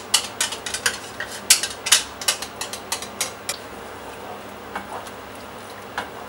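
Wooden spoon stirring a cream sauce in a non-stick frying pan, knocking and scraping against the pan in quick clicks for about three and a half seconds, then only a few light taps.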